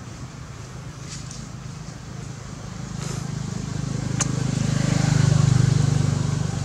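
A passing motor vehicle's engine hum, growing louder to its peak about five seconds in and then starting to fade. There is a single sharp click a little past four seconds.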